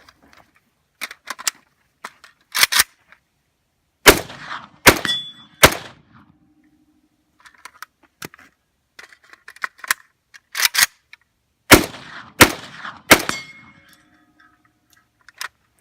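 Semi-automatic rifle fired three times about a second apart, then the clacks of a magazine change, then three more shots. Each volley is followed by a lingering metallic ring. Smaller clicks and clacks of loading the rifle come first.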